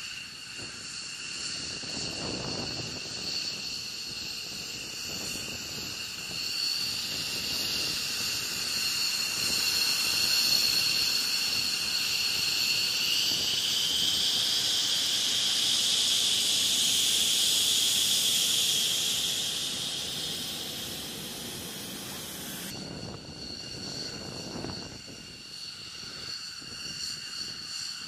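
Liquid oxygen servicing cart hissing as oxygen is vented and transferred. The hiss swells about six seconds in, stays loud for roughly a quarter of a minute, then drops away. A steady high-pitched whine runs underneath.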